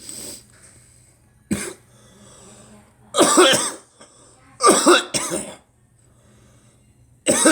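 A person coughing in separate fits: a short cough about a second and a half in, a louder cough around three seconds, two coughs close together near five seconds, and another starting at the very end.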